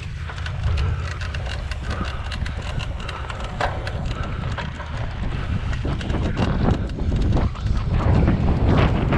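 A cyclocross bike clattering and rattling over bumpy grass and dirt, with many irregular sharp clicks that come thicker in the second half, over the rumble of wind buffeting the bike-mounted microphone.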